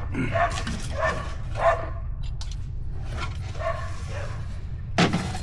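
A dog whimpering in short, repeated pitched calls, about one every half second, over a steady low hum. A sharp knock comes near the end.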